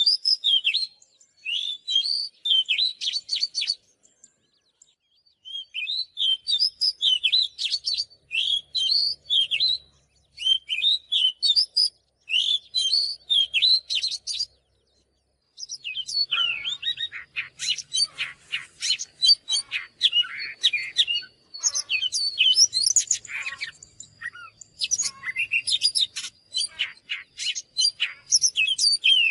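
Oriental magpie-robin song: rapid, varied whistled and chattering phrases in bursts, broken by short pauses about four and fifteen seconds in. The second half is denser, with a faint steady high tone beneath the song.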